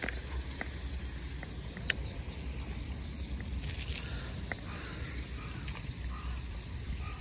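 Outdoor ambience with a small bird chirping in a rapid repeated series, a few sharp clicks, a short rush of noise about halfway through, and a constant low rumble.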